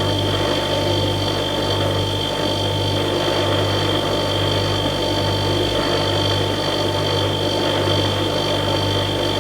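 Household refrigerator's cooling compressor running: a steady electric hum with a low throb that swells and fades a little faster than once a second, over a steady whirr and a few faint high whines.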